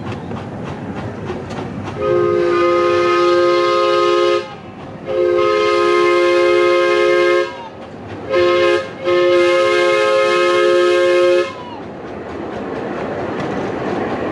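Miniature steam locomotive's chime whistle sounding four blasts, long, long, short, long, the grade-crossing signal, each blast a chord of several notes together. The train's wheels click over the rail joints before and after.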